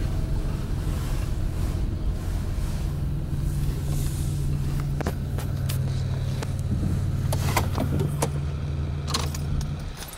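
Car engine running steadily, heard from inside the cabin, with a few clicks and rattles. The engine hum stops just before the end.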